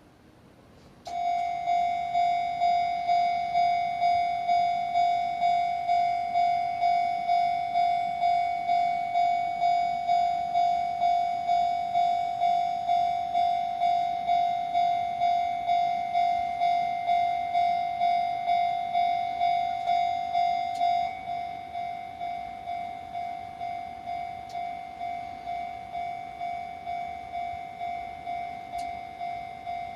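Japanese level-crossing warning bell starts ringing suddenly about a second in, a steady electronic ding repeating about twice a second, signalling that a train is approaching. About two-thirds of the way through it becomes noticeably quieter but keeps ringing.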